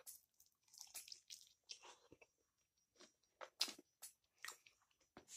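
Faint chewing and biting sounds of a man eating chicken wings: scattered short mouth clicks and crunches, a few a little louder about three and a half seconds in.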